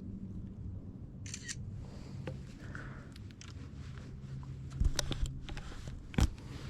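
A few sharp knocks and clicks of handling on a boat over a low steady hum, the loudest pair about five seconds in.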